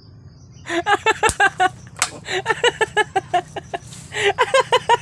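A man laughing hard in rapid, pulsing runs of 'ha-ha' bursts, three runs in a row. Two sharp clicks come about a second and two seconds in.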